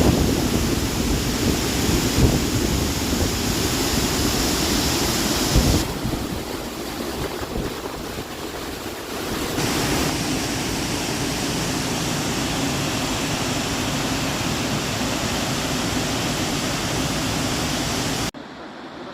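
Waterfall rushing, a loud steady roar of falling water, with wind buffeting the microphone. It drops in level about six seconds in, comes back about four seconds later, and cuts off to a much quieter rush near the end.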